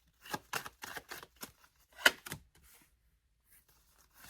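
Tarot cards being handled: a quick run of light clicks and flicks, with a louder snap about two seconds in.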